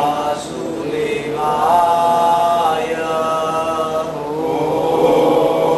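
A man chanting a devotional mantra (namjapa, the chanting of divine names) in long, held notes that slide from one pitch to the next.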